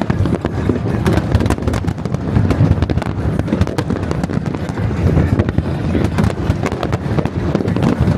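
Fireworks recorded close up at the launch site: a dense, unbroken barrage of sharp bangs and crackles, many a second, with no let-up.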